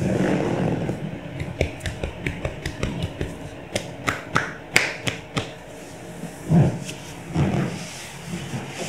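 Handling noise from a Thai massage leg stretch: rustling of clothing, a run of quick sharp taps, then two soft low thuds as the leg is worked and set down.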